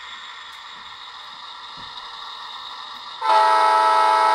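An MTH Protosound 2 O-scale electric locomotive's onboard sound system sounds one steady horn blast, a chord of several notes, starting about three seconds in and held for under two seconds. Before it, a faint steady hum.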